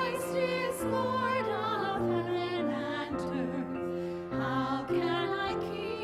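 A hymn sung by a few voices with vibrato over keyboard accompaniment, held notes moving from one to the next.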